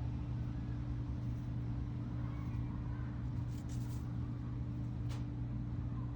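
Steady low hum and rumble of city traffic noise, with a few faint ticks around three and a half and five seconds in.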